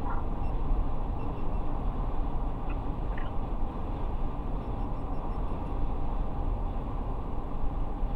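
Steady road, tyre and engine noise heard inside a car's cabin at highway speed, about 120 km/h.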